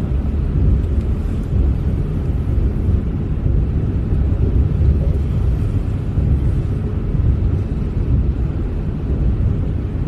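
A small river flowing: a steady, low rush of water with no change throughout.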